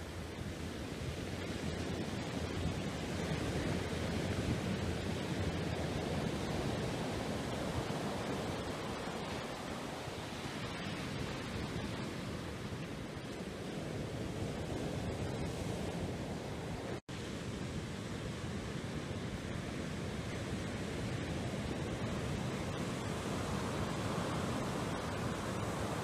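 Steady rushing wind noise with no tone or rhythm in it, cut off completely for an instant about two-thirds of the way through.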